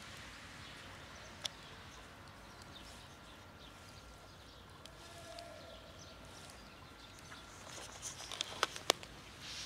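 A cat eating dry kibble from a plastic tub, with a few sharp clicks of chewing, most of them bunched near the end, over faint outdoor background noise.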